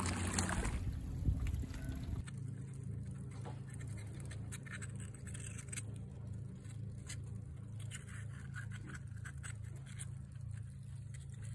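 Metal spoon scraping sea urchin roe out of the opened shell: faint, scattered scrapes and clicks over a steady low hum. The first two seconds are louder water and wind noise, ending abruptly.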